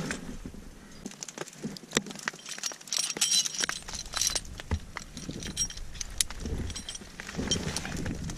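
Metal climbing gear jangling and clinking as a carabiner is handled and clipped with gloved hands, with scattered sharp clicks throughout. The jangling is densest about three to four and a half seconds in.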